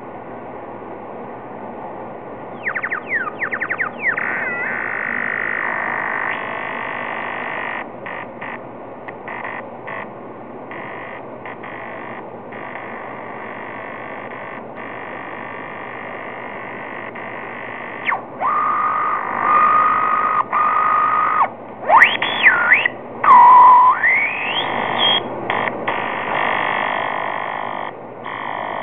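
Korg Monotron pocket analog ribbon synthesizer being played: a steady noisy hiss with a burst of fast repeating pitch wobbles a few seconds in. Later come held notes, then wide pitch glides sweeping up and down, which are the loudest part.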